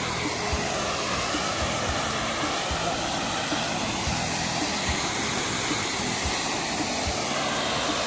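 Waterfall pouring about ten metres into its pool: a steady, unbroken rush of falling water.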